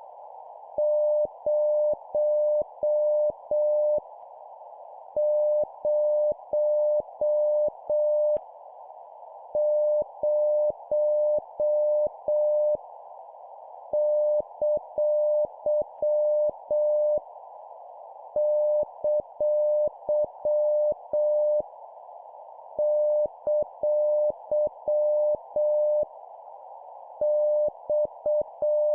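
Morse code (CW) practice tone sent at 7 words per minute: one steady mid-pitched beep keyed into dots and dashes over a constant band of hiss, in evenly spaced groups of about five elements with roughly a one-second pause between groups.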